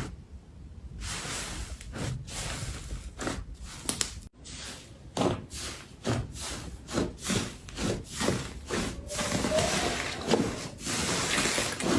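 Slime being mixed and squished by hand: irregular sticky rubbing and squelching strokes, with a brief break a little over four seconds in.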